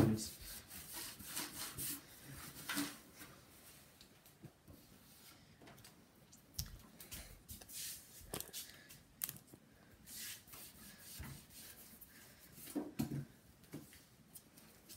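Paper towel and kitchen sponge wiping and scrubbing the plastic casing of a Samsung SyncMaster 700s CRT monitor: faint, uneven rubbing of the plastic with scattered small clicks.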